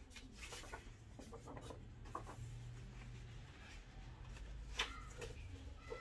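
Pages of a large paper log book being turned by a gloved hand: soft paper rustling and crinkling, with a sharper flap of a page about five seconds in.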